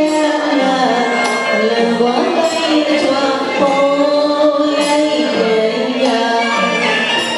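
Burmese song: a woman singing a melody over instrumental accompaniment.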